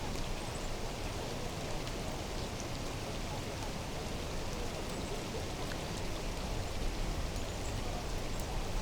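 Steady, even wash of water noise with no breaks, heaviest in the low end, with a few faint high ticks scattered through it.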